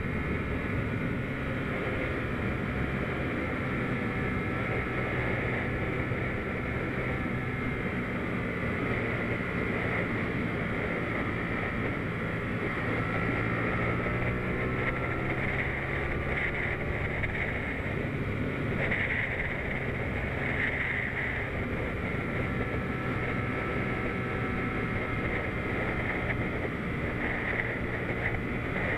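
Comet GTR250 motorcycle's V-twin engine running at road speed, with steady wind noise over the microphone. The engine note rises and falls a little in the middle as the throttle changes.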